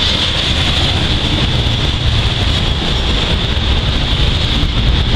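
Norfolk Southern intermodal freight train rolling past: a steady low rumble of the cars with a constant high hiss over it.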